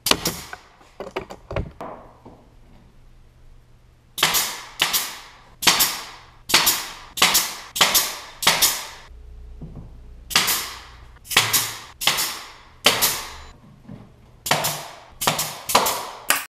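Pneumatic brad nailer firing nails into MDF panels: sharp cracks in quick runs of two to five shots, about two a second, with short pauses between runs.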